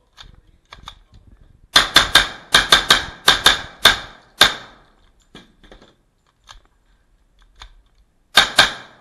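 Rapid gunfire on an IDPA stage: a quick string of about a dozen shots in under three seconds, a pause with a few light clicks, then a fast group of three more shots near the end.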